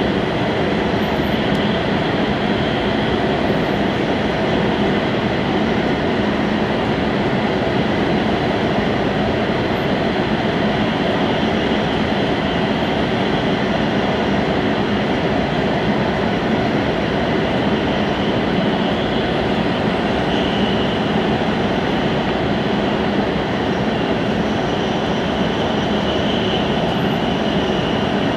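Steady running noise of a Hokkaido Shinkansen train at speed, heard from inside the carriage: an even rumble and rushing hiss that holds constant throughout.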